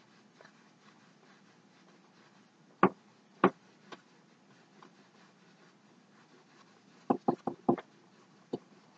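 Paintbrush knocking against a stretched canvas while blue acrylic is dabbed and brushed on: two sharp knocks about three seconds in, a quick run of five around seven seconds in, and one more near the end, over a quiet room.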